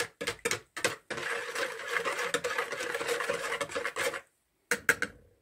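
Wire whisk beating dry yeast and sugar into a little water in a plastic bowl. It starts with quick separate strokes, runs for about three seconds of fast, continuous whisking, gives a couple more strokes and stops.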